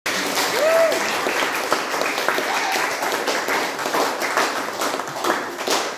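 A small audience clapping in a classroom: many hands in quick, dense applause, with a brief pitched voice call about half a second in and voices among the clapping.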